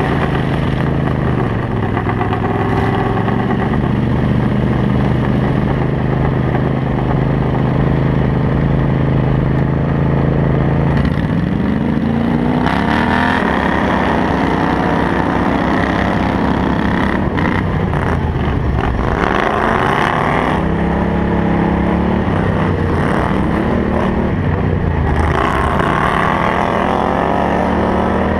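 Engine of a racing ride-on lawn mower, heard from the driver's seat at race speed. It holds steady for about the first ten seconds, then rises and falls in pitch several times as the throttle is worked, climbing again near the end.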